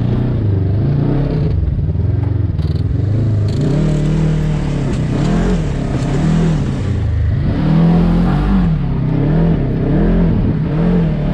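Side-by-side buggy's engine, heard from the seat, revving up and down over and over as the throttle is worked; from a few seconds in, its pitch rises and falls about once a second.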